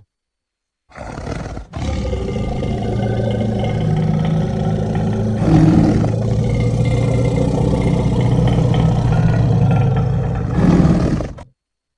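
Woolly mammoth creature roar, made from stock elephant and monster-roar sound effects. It is a long, deep, steady roar that starts about a second in and breaks briefly just before two seconds. It swells louder around six seconds and again near the end, then cuts off suddenly.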